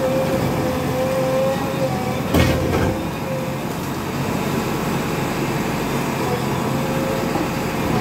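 JCB backhoe loader's diesel engine running steadily with a steady whine as its bucket pushes into a brick wall, and one sharp crash of masonry about two and a half seconds in.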